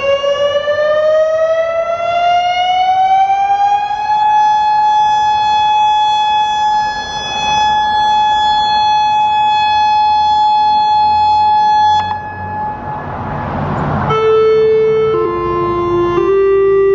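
Federal Signal Modulator 6048 electronic outdoor warning siren: its siren tone glides up in pitch for a few seconds, holds a steady note, then cuts off suddenly. After a brief rush of noise, a sequence of electronic chime notes begins, stepping between pitches about a second each: the all-clear chimes that end the test.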